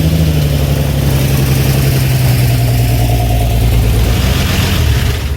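1974 Dodge D100's six-cylinder engine idling steadily, running on five cylinders: one cylinder is not firing.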